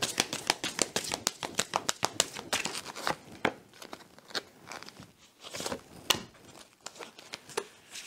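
A deck of oracle cards shuffled by hand, the cards sliding and slapping against each other in quick clicks. The clicks come thick for about the first three seconds, then sparser, with a few louder snaps.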